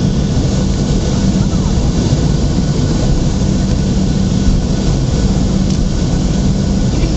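Cabin noise of a Boeing 737-800's CFM56-7B jet engines running, heard from a window seat: a loud, steady rush with a constant low hum.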